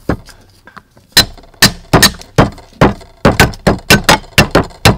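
Cleaver chopping a fresh root on a thick wooden chopping block: sharp knocks of the blade striking the wood, one right at the start, then after a pause of about a second a steady run of about a dozen, two to three a second.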